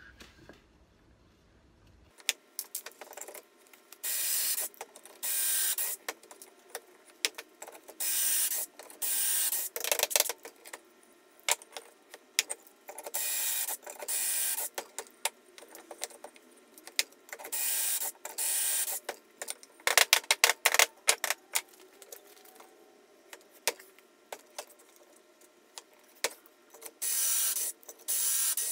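Ryobi cordless drill boring pocket holes into a wooden board through a Kreg K4 pocket-hole jig: about ten bursts of the drill spinning the bit into the wood, each about a second long and mostly in pairs. Clicks and knocks of handling the board and drill come between them.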